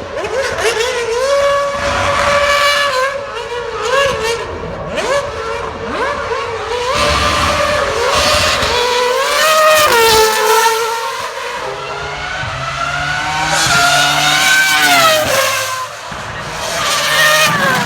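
2017 Mercedes Formula 1 car's turbocharged V6 hybrid engine revving up and down again and again, with tyre squeal from wheelspin.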